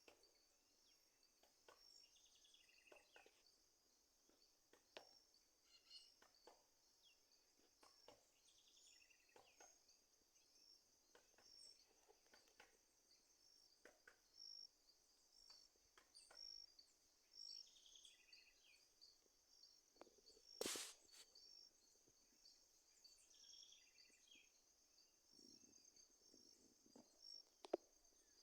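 Faint evening insect chorus, crickets chirping steadily high-pitched with a regular pulse, with occasional short bird calls. A sharper, louder sound cuts through once about twenty seconds in.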